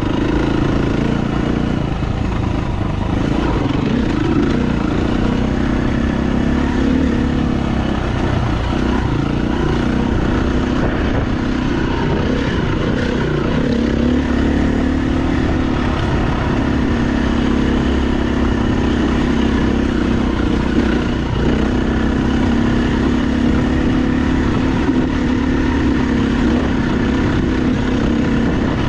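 KTM dirt bike engine running steadily under way, its pitch rising and falling a little as the throttle is worked.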